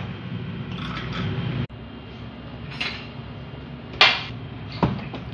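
A low steady hum that cuts off abruptly, then two sharp clunks of metal kitchenware with a short ring, the first the louder, about a second apart.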